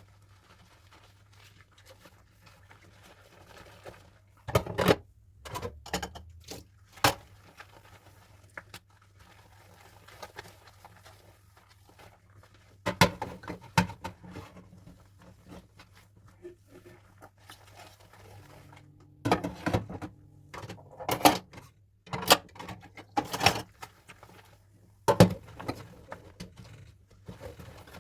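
Dishes and utensils clinking and knocking against each other during hand washing, in several short clusters with quiet stretches between, over a faint steady low hum.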